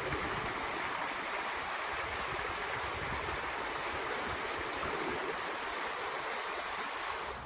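Water of a stream or small waterfall rushing steadily, an even sound without pauses.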